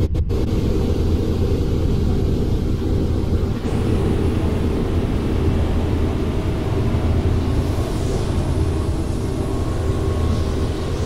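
Helicopter in flight heard from inside the cabin: a loud, steady drone of engine and rotor noise.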